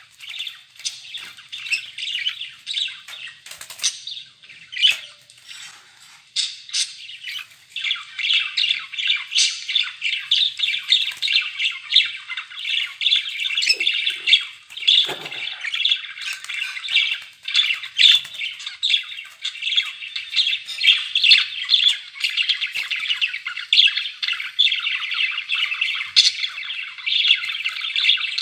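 Budgerigars chattering and warbling: a fast stream of chirps and squawks, scattered at first and thickening into continuous chatter about eight seconds in.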